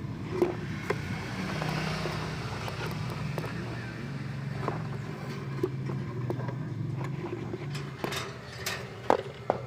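A motor vehicle engine running with a steady low hum, with a few sharp clicks and knocks near the end.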